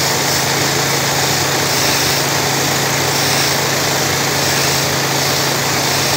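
Pressure washer's engine running steadily with a constant hum, under the hiss of the high-pressure hot-water spray hitting concrete.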